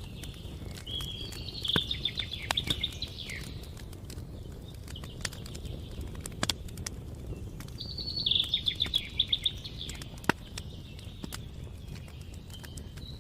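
Campfire crackling with scattered sharp pops over a steady low rumble of burning. A songbird sings twice over it, a quick run of repeated high notes about two seconds in and again about eight seconds in.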